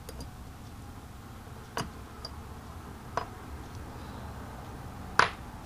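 Three sharp clicks of small metal Tecumseh carburetor parts and tools knocking together as they are fitted by hand. The last, about five seconds in, is the loudest. A low steady hum runs underneath.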